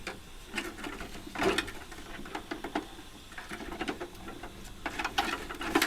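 Irregular small clicks and short rattles of hand cutters at work on the copper pipes of a mobile air conditioning unit, with a louder cluster about a second and a half in and more near the end.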